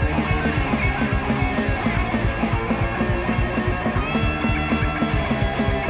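Rock band's demo recording in an instrumental stretch without vocals: guitars playing over a steady beat.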